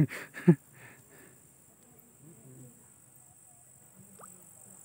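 Insects chirring steadily in summer grass, a thin high hiss. Two short loud bursts of a voice come right at the start, and faint distant voices follow.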